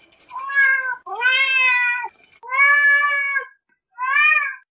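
A domestic cat meowing four times: drawn-out meows of about a second each, separated by short gaps. A high steady tone sounds over the first meow.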